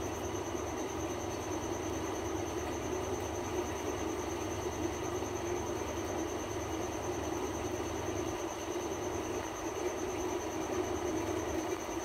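Steady background drone: an even hiss and hum with a constant high-pitched whine, unchanging throughout, with no parrot calls standing out.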